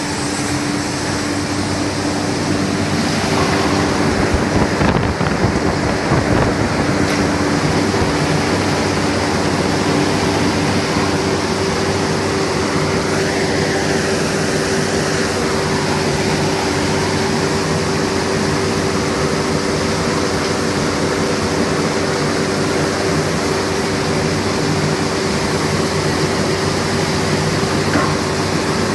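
Steady, loud industrial din of steel-plant machinery at a slag skimmer working a hot metal ladle, with a constant hum underneath; a second, higher hum joins about three seconds in.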